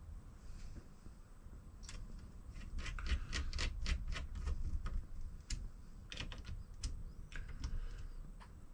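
Irregular light clicks and taps of small hand tools and parts being handled on a repair bench, coming in quick clusters from about two seconds in, over a low steady rumble.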